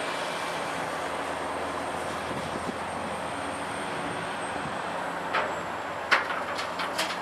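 Caterpillar 345C L UHD excavator's diesel engine running steadily as it swings a loaded bucket. From about five seconds in come several sharp knocks of rubble chunks dropping from the bucket.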